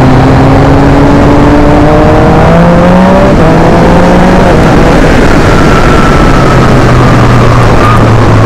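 Yamaha MT-09's inline three-cylinder engine through an Akrapovic exhaust, pulling under acceleration with the revs rising slowly for the first few seconds. Then loud wind noise on the microphone at riding speed drowns it.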